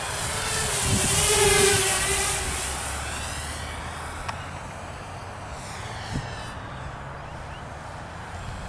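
Walkera F210 racing quadcopter's motors and propellers whining in flight. The whine swells to its loudest about a second and a half in, then fades as the drone moves away.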